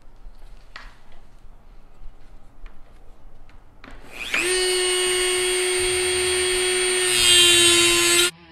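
A Dremel rotary tool is switched on about four seconds in. Its motor whines up to speed and runs at a steady high pitch. Near the end it gets louder and its pitch drops slightly as the bit cuts through the plywood tabs holding the pieces, then it stops abruptly.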